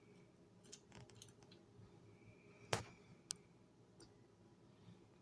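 A few faint, small clicks of lock pins and the deadbolt cylinder being handled, the two clearest about two and three seconds apart past the middle, with otherwise near silence.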